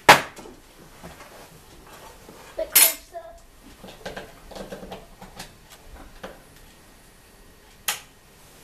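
Kitchen dishes and utensils being handled on a table: three sharp clinks, one at the start, one about three seconds in and one near the end, with quieter clatter between.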